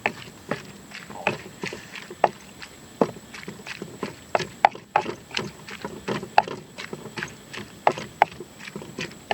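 A person chewing and eating with wet lip-smacking clicks, an irregular run of short sharp smacks about two to three a second.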